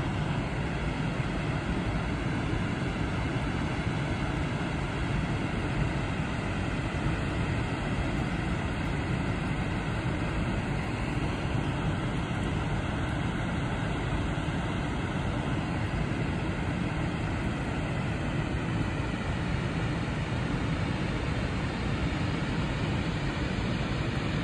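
Upper Tahquamenon Falls, a wide waterfall, pouring into the river below: a steady, unbroken rush of falling water.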